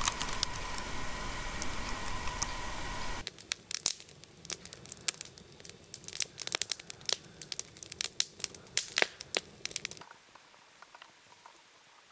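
A steady hiss with a faint high tone for about three seconds, then, after a sudden cut, a campfire crackling with frequent sharp pops of burning wood, thinning to a few faint clicks near the end.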